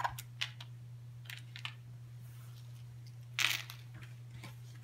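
Cardboard board-game pieces and a folded game board being handled and set down on a cloth-covered table: a few light clicks and taps, then a louder brief cardboard rustle about three and a half seconds in. A steady low hum runs underneath.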